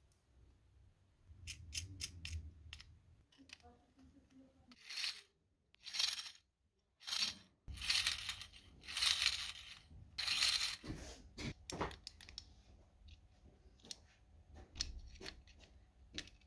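Small aluminium-plate gearbox with threaded rods, nuts and gears being handled and fitted together by hand: scattered light metallic clicks and clinks, with several short scraping rasps.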